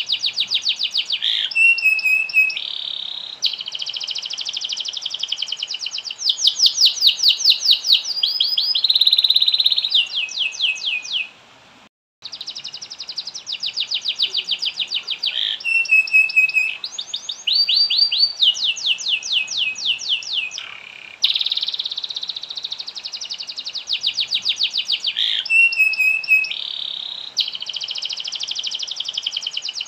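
Domestic canary singing a long, continuous song of fast trills and rolls of rapidly repeated high notes. The song breaks off briefly about twelve seconds in, then carries on.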